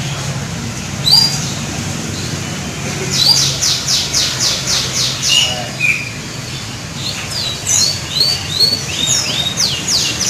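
Canary singing. A sharp high call comes about a second in, then a rapid run of repeated high notes, then scattered chirps and further quick trills toward the end.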